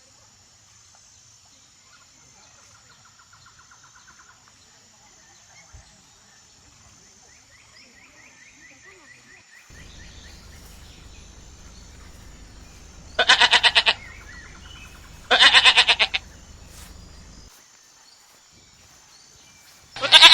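Domestic goats bleating: two loud, quavering bleats about two-thirds of the way through, a few seconds apart, and another right at the end.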